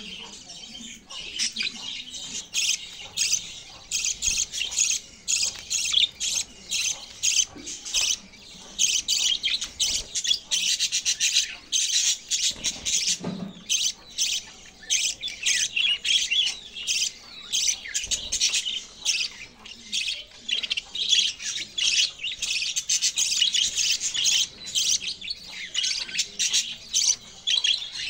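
Budgerigars chattering: a dense, unbroken stream of rapid high chirps and squawks, several birds calling over one another.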